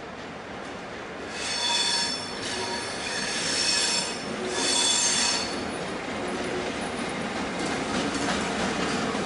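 Diesel locomotives, an S class leading a T class, with their wheels squealing against the rails in three spells of high squeal in the first six seconds as they take curving yard track. After that the locomotives' steady running rumble grows louder as they pass close by.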